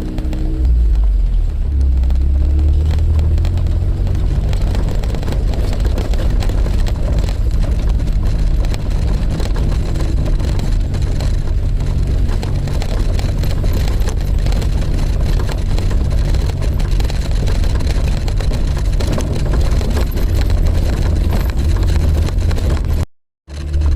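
Suzuki Jimny running down the road: a steady low engine and road rumble. It cuts out for about half a second near the end.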